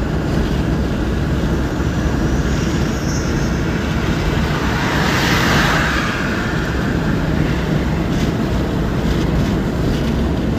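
Road and tyre noise with engine hum inside a car cruising at about 80 km/h, steady throughout, with a rushing sound that swells and fades about five seconds in.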